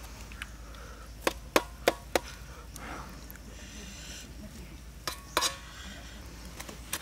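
Kitchen knife cutting through boiled cow tripe and knocking on a wooden chopping board: four sharp knocks in quick succession about a second in, then two more near the end.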